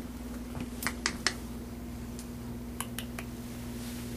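A steady low hum with two quick runs of three sharp clicks, one about a second in and one near three seconds in.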